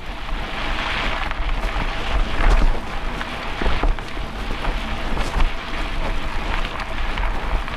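Mountain bike rolling over a dirt bush trail: steady tyre noise on the loose ground, scattered small clicks and rattles from the bike over bumps, and a low rumble of wind on the microphone.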